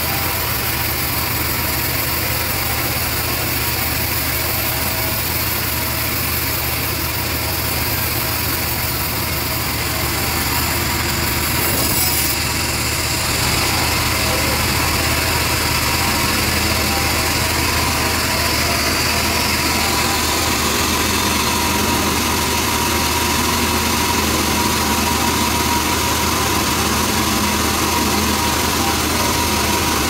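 Large band sawmill running steadily while its blade saws through a trembesi (rain tree) hardwood log: a constant machine hum under a high hiss. About twelve seconds in the sound shifts and grows a little louder.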